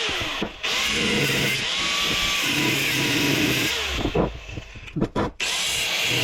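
A power tool cutting into a compressor's thick steel shell, running steadily. It dips briefly about half a second in, then stops from about four seconds in with a few sharp knocks before starting again near the end.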